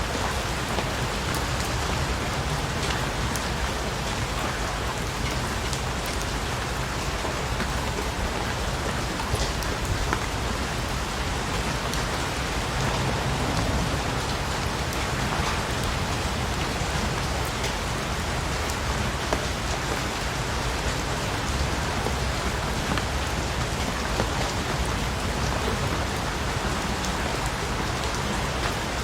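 Steady rain falling on a surface, a dense even hiss with scattered individual drop taps.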